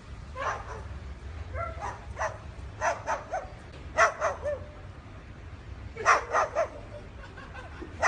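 Sulphur-crested cockatoo giving short dog-like barks, mostly in quick groups of two or three, as it raises its crest and spreads its wings.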